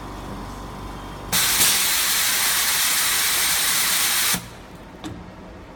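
Flex cable laminating machine letting out a loud, steady rush of air hiss for about three seconds, starting and cutting off abruptly, as the press cycle ends. A low machine hum sits under it before the hiss, and a single faint click follows about a second after it stops.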